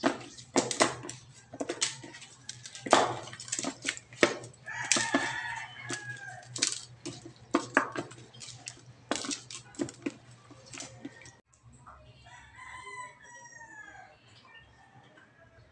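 Repeated knocks and clatter of raw chicken pieces being rubbed and turned by hand in a bowl, through the first eleven seconds or so. A rooster crows in the background twice: once about five seconds in and again a second or two after the knocking stops.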